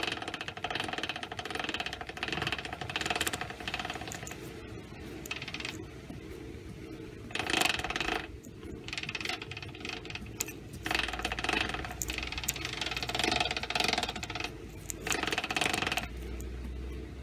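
Lambretta gear-selector mechanism and gearbox ticking and rattling in several uneven spells, metal on metal, as the scooter's rear wheel is turned by hand while the gear adjustment is checked.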